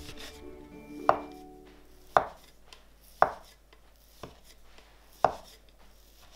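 Metal bench scraper cutting through a log of cookie dough and knocking on a wooden board, five cuts about a second apart, the fourth softer.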